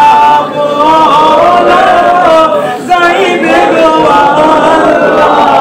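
Men's voices chanting an Islamic devotional song at a milad, a melodic line drawn out in long bending notes with only brief breaths.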